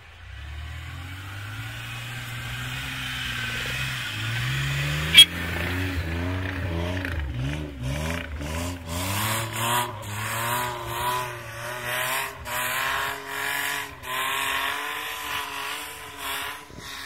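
A 4x4 SUV's engine revving hard while its wheels spin in deep snow: the pitch climbs over the first few seconds, then rises and falls again and again as the tyres slip and bite. A single sharp click sounds about five seconds in.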